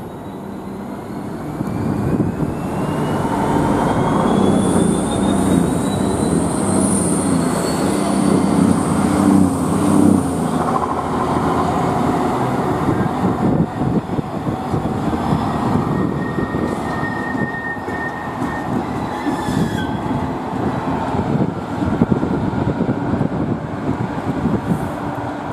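A Class 66 diesel locomotive's two-stroke V12 engine working hard as it passes close by hauling a freight train, loudest in the first ten seconds or so. The loaded open box wagons follow with a steady rumble and clatter of wheels on rail, with a brief high wheel squeal partway through.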